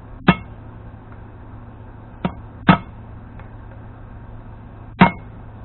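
Hammer tapping a drift to drive the knurled lug studs of a Dana 44 front hub into their splines: four sharp taps at uneven spacing, two close together in the middle, the first of those lighter. The studs are only starting to bite and have not yet bottomed out.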